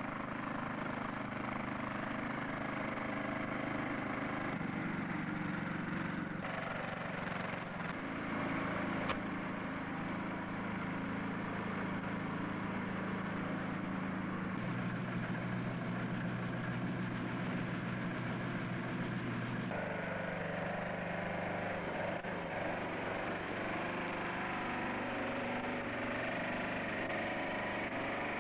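Engine of a Cinam Mouflon articulated tracked tractor running steadily, its pitch shifting up and down in steps a few times.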